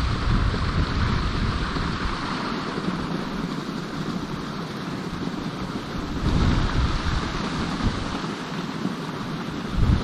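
Strong gusting wind buffeting the microphone, over a steady rushing of river water. The low rumble eases about two seconds in and picks up again towards the end.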